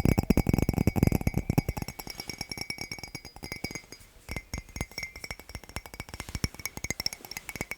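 Fingers tapping fast on hard objects, many taps a second, with a faint ringing clink from the struck items. The tapping is loudest for the first second or two, then softer.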